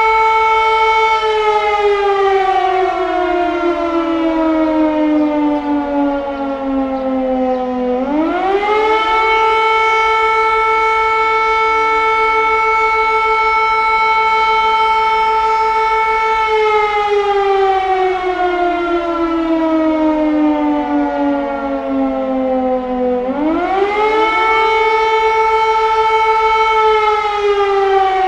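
Air raid siren wailing in long cycles. Each cycle is a quick rise in pitch, a steady held tone for several seconds, then a slow slide down over about seven seconds. The quick rise comes twice.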